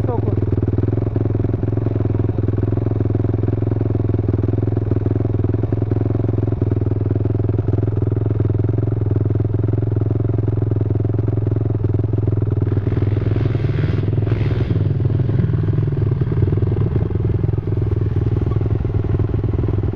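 ATV engine idling steadily close by, with a short rise in engine noise about 13 seconds in.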